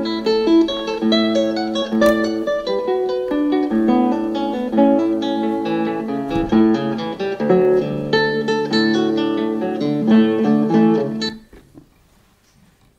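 Plucked acoustic guitar music playing through the speakers of a Telefunken HP 830 T cassette boombox during a sound test; it stops suddenly about eleven seconds in.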